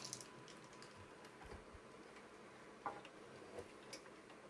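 Near silence, with a few faint scattered clicks and ticks of handling, the most distinct about three seconds in.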